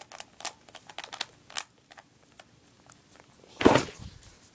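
3x3 Rubik's cube being turned through an algorithm: a string of quick, irregular plastic clicks as the faces are twisted, with a louder bump about three and a half seconds in.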